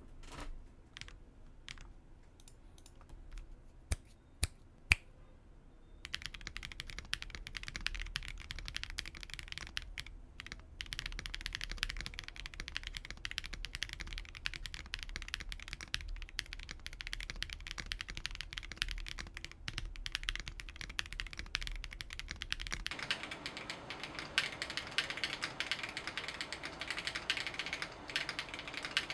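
Typing on a clacky GAS67 65% mechanical keyboard. For the first few seconds there are only scattered key presses, three of them sharp and loud around four to five seconds in, then fast continuous typing from about six seconds. The tone changes about 23 seconds in, when the recording moves from a Fifine F4 microphone to the Nikon D7000's microphone.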